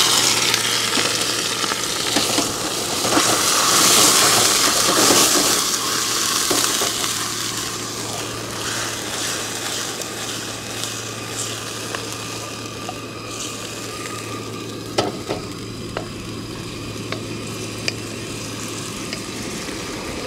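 Scallions, ginger and garlic stir-frying in a carbon-steel wok: a loud sizzle for the first several seconds after sake is splashed in, easing to a quieter steady frying as a wooden spoon stirs. A few sharp taps of the spoon on the wok near the end.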